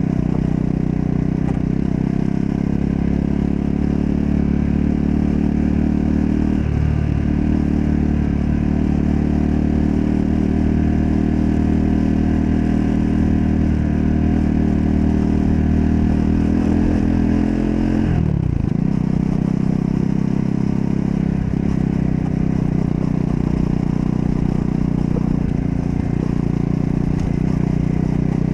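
Triumph Scrambler 400 X's single-cylinder engine running under way at steady revs. There is a short break in the engine note about seven seconds in. About eighteen seconds in the revs fall off sharply, and the engine runs on at a lower pitch.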